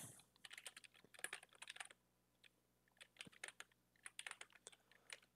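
Faint typing on a computer keyboard: two quick runs of keystrokes with a brief pause about two seconds in.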